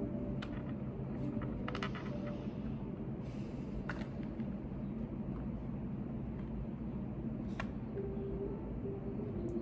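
Steady office room tone with a low hum, under sparse light clicks of computer keyboard typing: a few single keystrokes, a short run of them about two seconds in, and a brief soft rustle a little after three seconds.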